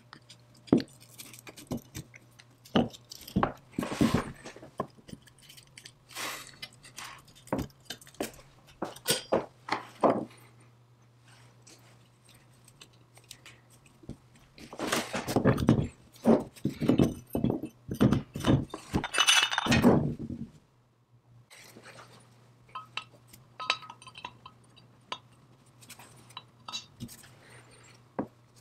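Cast-iron belt lacer parts and small hand tools clinking and knocking against each other and the wooden bench as the lacer is reassembled, with a small screw being driven in by screwdriver. The handling is busiest for several seconds around the middle and goes on as lighter, scattered clicks near the end, with a faint steady low hum underneath.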